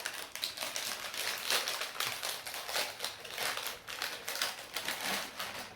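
Cookie packaging being handled: rapid, irregular crinkling and rustling as it is opened and a cookie is taken out.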